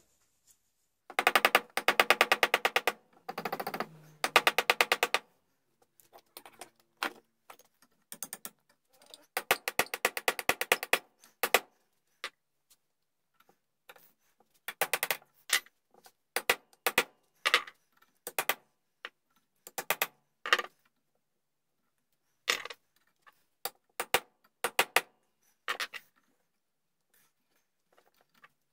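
Small hand tools working at the hook slot in a wooden gunstock. There are a few buzzing strokes of rapid clicking in the first several seconds, then scattered sharp taps and clicks.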